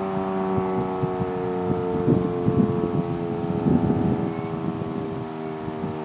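Federal Signal Model 5 outdoor warning siren sounding a chord of steady tones that sag slowly in pitch and grow quieter. Irregular gusts of wind noise on the microphone come and go over it.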